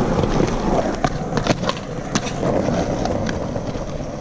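Skateboard wheels rolling over rough concrete: a steady gritty rumble broken by several sharp clicks.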